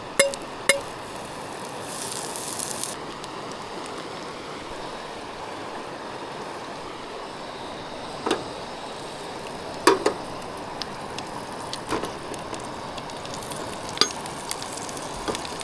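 Bread dough frying in garlic-herb butter in a pan, with a steady sizzle and a brief louder hiss about two seconds in. A few clinks and knocks of utensils on cookware come through it.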